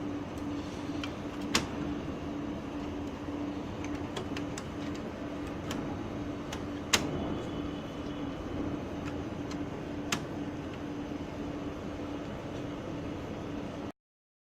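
Steady background hum with scattered light clicks and three sharper clicks of printer parts being handled and fitted back together. The sound cuts off suddenly near the end.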